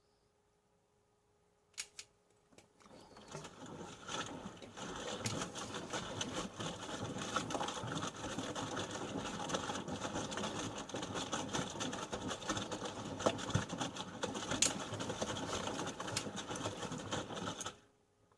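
Panasonic NA-147VB2 inverter washing machine turning its drum: after a quiet pause and a couple of clicks, the drum starts about three seconds in and runs steadily with the load tumbling, then stops abruptly near the end.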